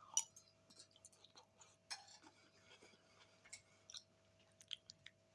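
Faint, scattered mouth clicks and chewing of a person eating pasta bake, with one sharper click just after the start, over a faint steady hum.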